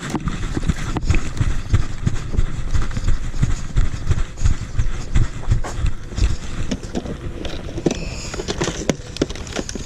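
A person running on foot: a quick, uneven series of heavy footfall thuds. Steady low rumble and rustle from the camera's microphone jolt along with each stride.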